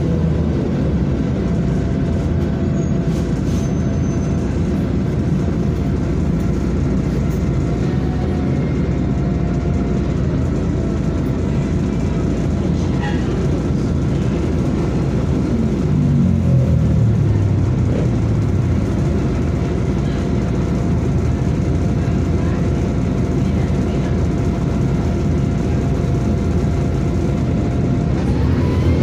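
VDL DB250 Wright Pulsar Gemini double-decker bus under way, heard from inside on the upper deck: steady engine and road rumble with a faint steady whine. About halfway through the engine note falls in pitch.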